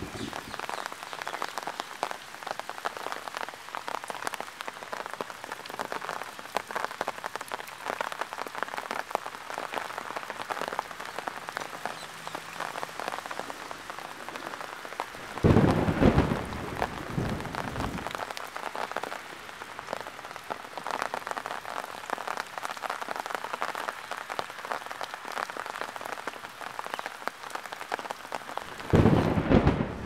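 Heavy rain falling steadily on a lawn and paving, a dense patter full of fine drop ticks. Two low rumbles of thunder break through, a longer one about halfway and a shorter one at the end.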